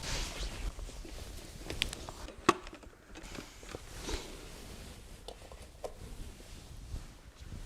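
Quiet indoor room tone with scattered faint clicks and taps, and one sharper knock about two and a half seconds in.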